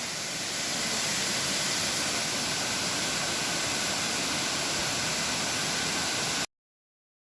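Waterfall: a steady rushing hiss of falling water, strongest in the high pitches with little low rumble, that stops abruptly near the end.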